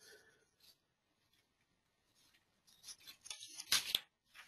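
A quiet pause with faint rustling and scraping noises in the second half, the loudest a short burst about a second before the end.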